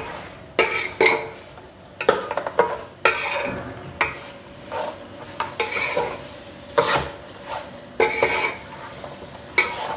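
Metal slotted spatula scraping and clanking against an aluminium pot as pieces of beef are stirred and fried in garlic, about one or two strokes a second, with light sizzling between the strokes.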